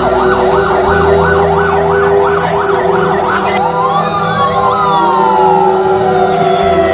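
Emergency vehicle sirens: a fast yelp, about three rising-and-falling sweeps a second, gives way about three and a half seconds in to slower wailing sweeps with a long downward glide, over a steady low hum.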